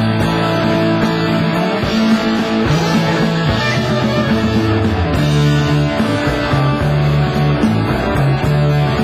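Progressive rock instrumental passage: electric guitar and bass over a steady band, no vocals.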